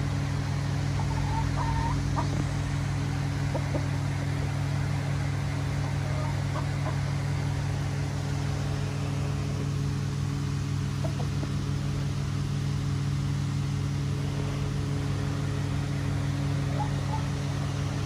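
A steady low machine hum with several fixed low tones. Over it, a few soft short chicken calls in the first couple of seconds and now and then after.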